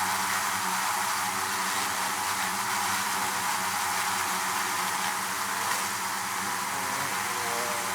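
Honeybee hive: the steady, dense buzz of many bees at once, with a constant low hum under it.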